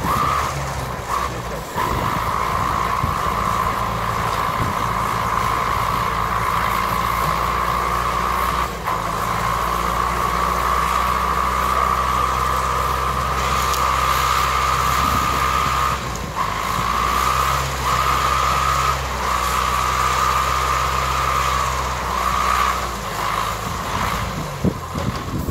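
TAF forestry skidder's diesel engine running steadily under load while its winch cable drags a felled log in, with a steady high whine running alongside the engine.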